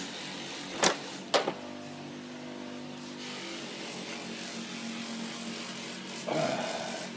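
Sheet-metal cover and rail of a colour laser copier being handled: two sharp metallic knocks about a second in, then a short scraping rustle near the end, over a steady low hum.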